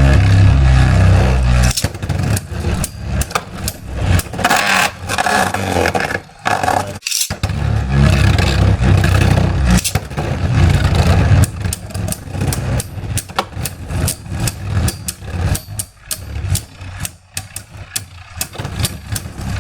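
Beyblade spinning tops, one of them 3D-printed, whirring and scraping in a plastic stadium, with a heavy rumble at the start and again partway through as they clash. Later the sound turns into a fast run of sharp clicks and clacks as the tops wobble, rattle and knock together.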